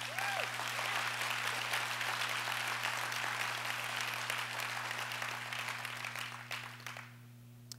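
Audience applauding, dying away about a second before the end.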